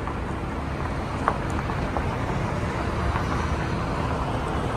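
Car moving slowly, heard from inside the cabin: a steady low rumble of engine and tyres, with one light click about a second in.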